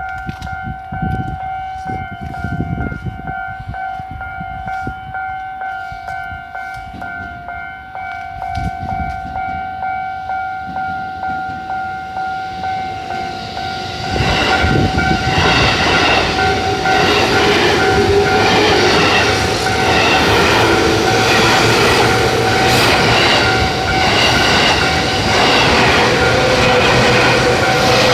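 A Japanese level-crossing warning bell rings throughout with about two strikes a second. About 14 seconds in, a local electric train arrives and passes close by, much louder, its wheels clattering rhythmically over the rail joints while the bell keeps ringing.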